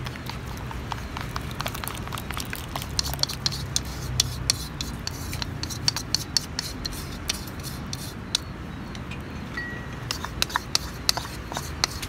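Chopsticks clicking and tapping against a ceramic bowl while egg-and-flour batter is scraped out and poured over chopped vegetables. The quick clicks come in clusters about three seconds in and again near the end.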